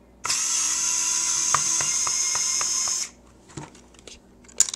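Hammerhead cordless screwdriver's motor running for about three seconds, backing a screw out of a battery pack's plastic case, with a light click about four times a second in its second half. A few sharp clicks of the pack being handled follow, the sharpest near the end.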